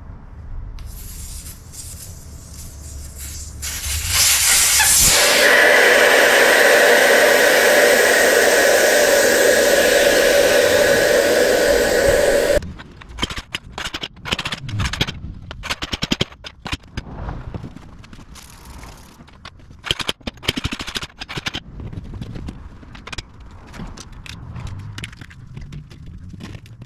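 A loud, steady hiss with a whine in it, which starts about four seconds in, runs for about eight seconds and cuts off suddenly. It is followed by a run of irregular clicks and scrapes.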